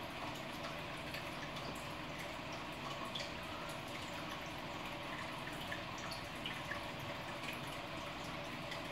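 Steady trickling of aquarium water, with small drips and splashes scattered through it.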